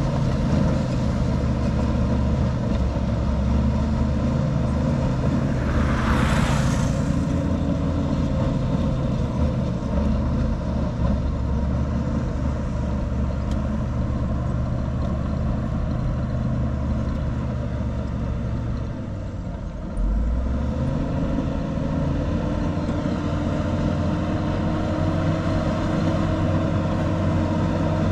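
Heavy diesel engines of earthmoving machines running steadily. A brief hiss comes about six seconds in. Later the engine eases off for a moment, then picks up again with a rising note.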